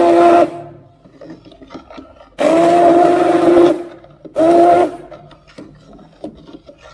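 Sonifer single-speed hand blender's motor whining with a steady pitch while it blends the last lumps of rice into porridge, run in short pulses. It stops about half a second in, runs again for a little over a second, then once more briefly, with faint knocks and clatter of the blade shaft in the pot between pulses.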